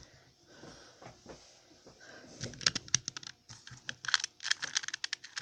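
Plastic 2x2x2 Rubik's Cube being turned by hand: a few faint ticks at first, then quick runs of clicking and clacking from about two and a half seconds in.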